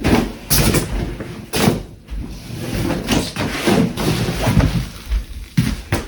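Sleeping pad's carrying bag being handled: a run of rustling, swishing sounds, several sharp swishes among them.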